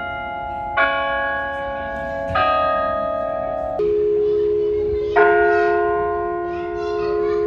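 Bells of the Delacorte Music Clock playing a slow tune, a new note struck about every second and a half, each one ringing on until the next.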